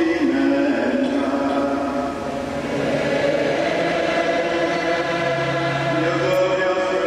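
Church choir singing slowly in long held notes, with a lower voice joining about five seconds in.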